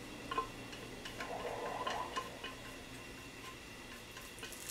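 Metal spoon scraping and tapping inside an open tuna can, a run of light, irregular clicks.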